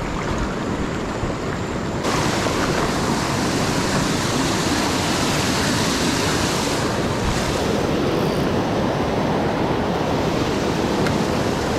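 River water rushing in a steady stream, which turns abruptly louder and brighter about two seconds in.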